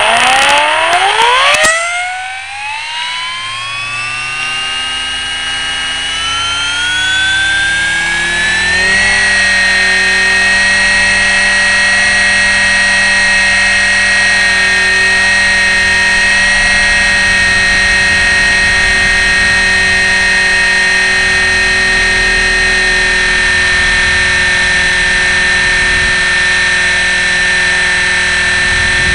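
KDS 450Q electric RC helicopter heard from a camera on its landing skid: the motor and rotors spool up with a whine rising in pitch over about nine seconds, then hold a steady high whine in flight. A loud burst of noise fills the first two seconds.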